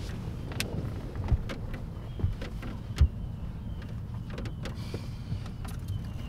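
A steady low rumble inside a vehicle cab, with a few soft knocks and rustles as a man shifts and reaches about in the driver's seat; the loudest knock comes about three seconds in.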